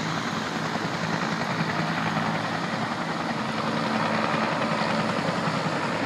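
Helicopter flying past, a steady engine and rotor drone with a fast rotor flutter.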